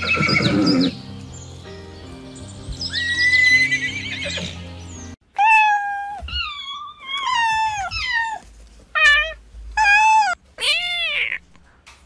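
Horse neighing over background music. The music cuts off about five seconds in, leaving a string of short, pitched whinnying calls with brief gaps between them.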